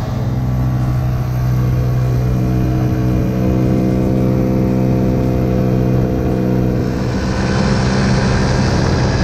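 Small motor scooter engine running at a steady cruising speed, a constant drone that does not rise or fall. About seven seconds in, a rushing noise of wind and road grows over it.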